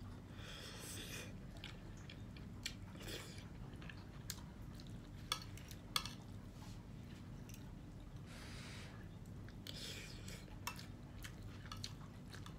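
Close-up chewing of noodles and vegetables, with a spoon and fork clicking against a plate four times. There are three short breathy sniffs, which come from the spicy, hot dish.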